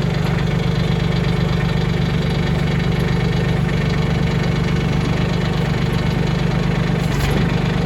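Mahindra 1626 compact tractor's diesel engine running at a steady idle.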